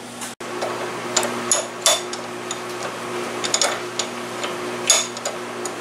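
Several light metallic clinks and taps, spread irregularly, as a small metal bracket is handled and set against the jaws of a bench vise. A steady low hum runs underneath.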